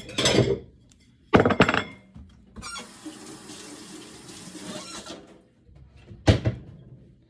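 Kitchen sink tap running for about two seconds as something is rinsed off, with a few knocks and clatters before and after it.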